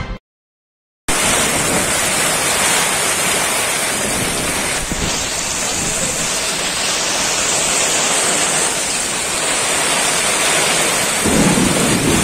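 Heavy rain falling steadily, with wind, starting about a second in after a brief silence.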